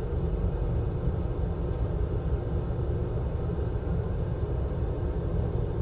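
Hot air rework station blowing steadily, a constant low air noise, while heating solder to lift off a charging flex connector.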